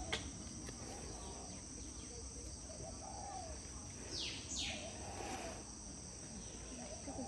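Steady high-pitched insect chirring, with two quick downward-sweeping bird chirps about four seconds in and a single soft click right at the start.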